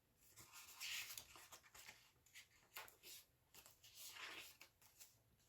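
Paper pages of a thick handmade junk journal being flipped: faint rustling and swishing, loudest about a second in and again around four seconds, with small ticks of paper between.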